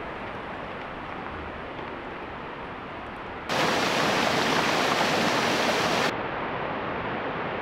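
Steady rushing of a rocky mountain stream. It is loud from about three and a half seconds in and cuts off sharply about a second and a half before the end, with a softer steady rush before and after it.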